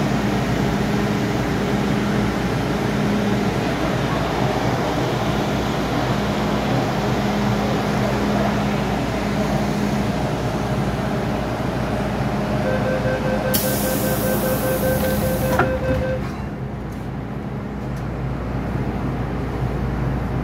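Hong Kong MTR M-Train standing at the platform with a steady hum from its ventilation. About 13 seconds in, the door-closing warning beeps start, a hiss of air comes in, and the doors shut with a knock, after which the car is quieter.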